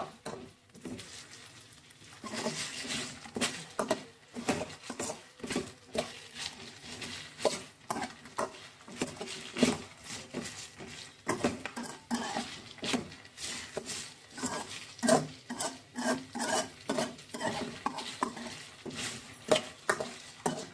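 Metal spatula scraping and tapping against a metal kadai as pre-boiled chicken pieces are stirred and tossed, in repeated quick strokes that start up about two seconds in.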